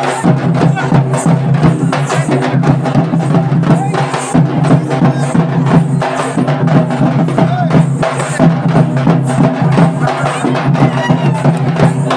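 Drums beaten fast and loud in a dense, driving rhythm of sharp strikes that never lets up, with voices of the crowd underneath.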